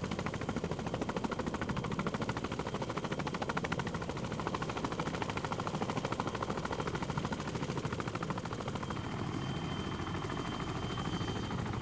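CH-46 Sea Knight tandem-rotor helicopter running with its rotors turning: a fast, even rotor beat with a steady high whine over it.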